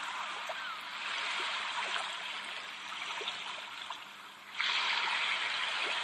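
Background recording of rushing, trickling water. It fades slightly, then swells back abruptly about four and a half seconds in.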